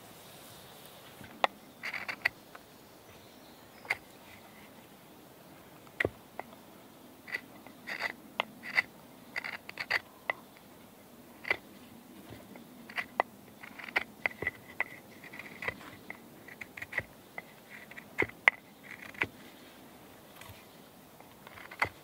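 A knife carving a piece of hard ash wood for a mallet: irregular short scraping cuts, sometimes in quick runs, as shavings come off.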